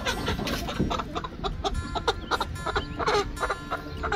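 Rainbow Ranger broiler chickens clucking, many short calls in quick succession, as the birds are caught and handled.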